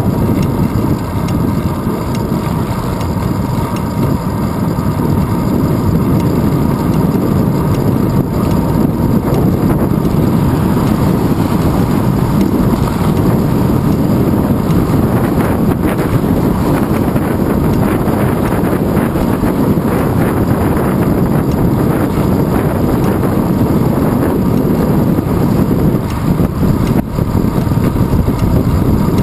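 Steady low rush of wind and road rumble on a handlebar-mounted GoPro Hero 2 while the bicycle rides along a paved road.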